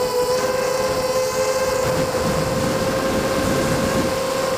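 FPV quadcopter's brushless motors and propellers whining at a steady pitch, with a rushing hiss of wind and prop wash, heard from on board the quad.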